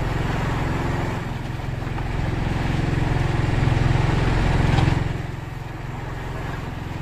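Fishing boat's engine running steadily with an even low throb, rising in level about three and a half seconds in and easing back off about five seconds in.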